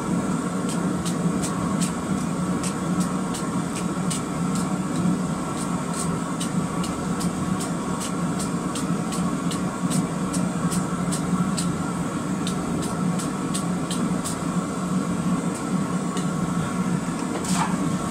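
Steady low roar of a running forge, with a run of sharp ticks, about two a second, as the glowing rebar bundle is cleaned and fluxed on the anvil before forge welding. The ticks stop near the end.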